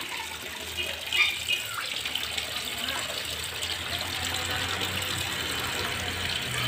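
Water pouring steadily from a hose into a koi pond, with the crowded koi stirring the surface.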